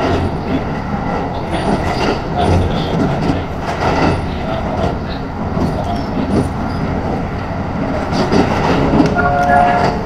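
Cabin running noise of a JR 681-series limited express under way: a steady rumble with rapid clicking from the wheels on the track. About a second before the end, the pitched notes of the onboard chime begin.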